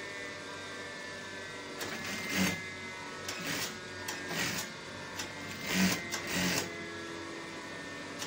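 EMEL industrial sewing machine stitching a waistcoat seam in about six short runs, each under half a second, over the steady hum of its motor.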